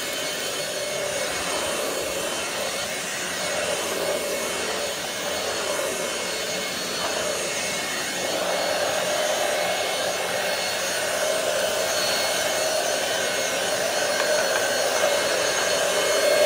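ROOMIE TEC SlimVac cordless stick vacuum running steadily with a motor whine, cleaning the floor; it gets a little louder about halfway through.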